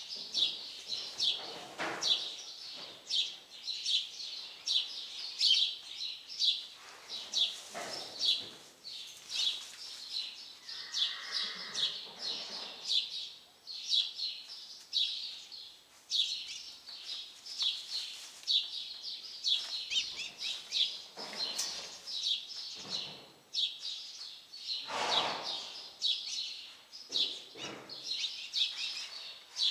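Small birds chirping in quick, busy bursts, several chirps a second without let-up, with a few softer rustling noises from lower down now and then.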